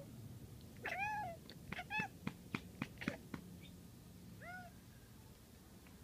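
Domestic cat making short chirping meows, three rising-and-falling calls, while watching birds, with a quick run of clicking chatter, about four clicks a second, between the calls: the excited prey chatter of a cat that sees birds it cannot reach.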